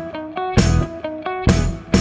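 Background music: a guitar-led tune with drums, the melody stepping from note to note over a steady beat.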